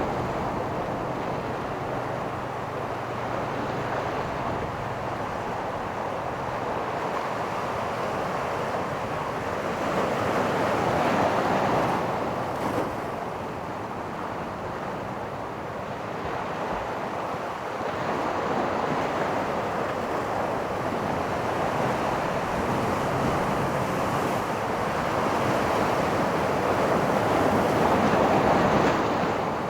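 Pacific Ocean surf breaking and washing up a beach: a continuous rushing that swells louder about ten seconds in and again near the end as waves come in.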